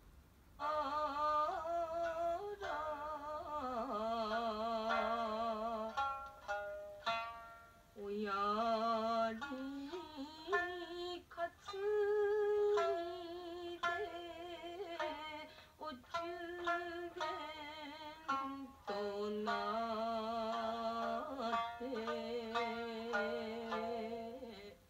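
Traditional Japanese song: a shamisen plucks an accompaniment while a voice sings long, wavering held notes. The music starts a moment in and breaks off abruptly at the end.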